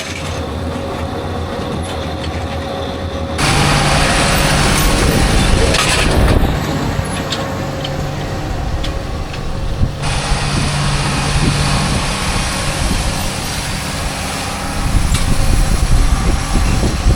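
Tractor running steadily while pulling a round baler through hay windrows. About three seconds in the sound jumps abruptly to a louder rushing noise, and it drops back to the engine hum around ten seconds in.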